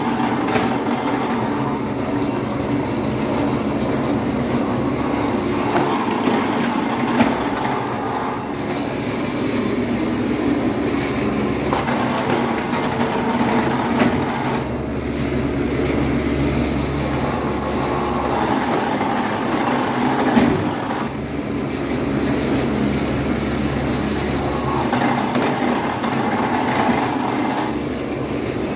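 Electric dough sheeter running steadily, its motor and rollers humming as bread dough is passed back and forth between the rollers, with a few sharp knocks along the way.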